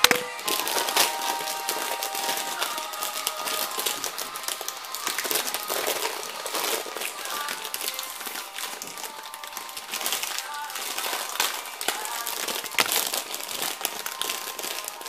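Plastic packaging crinkling and crackling as it is handled and opened, a steady run of small crackles and clicks.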